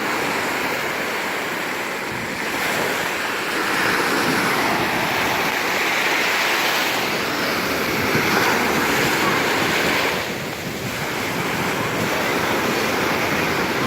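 Sea waves washing and breaking on a sandy beach, with wind buffeting the microphone. The surf swells louder after a couple of seconds and dips briefly about ten seconds in.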